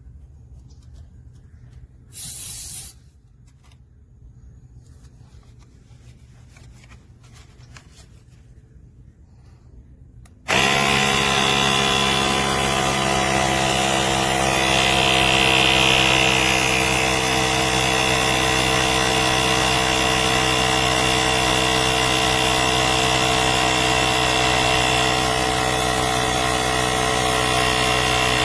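Nature Hero 150 PSI cordless portable tire inflator's compressor starting up about ten seconds in and then running steadily with a pitched motor drone. Before it starts there is quiet handling and a brief hiss about two seconds in.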